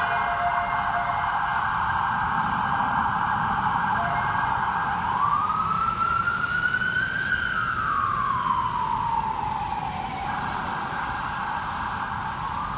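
Electronic siren of an FDNY battalion chief's car on a call, sounding a rapid yelp that switches about five seconds in to one slow wail rising and falling, then back to the rapid yelp near the end. City traffic noise runs underneath.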